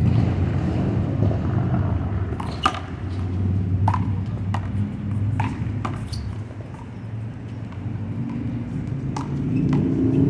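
One-wall handball rally: the small rubber ball slapped by hands and smacking off the wall and court, about eight sharp cracks at irregular intervals, over a steady low rumble of traffic.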